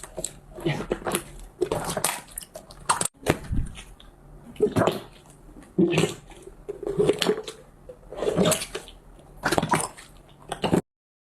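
Slime being squeezed and kneaded by hand, squishing in irregular bursts, then stopping suddenly near the end.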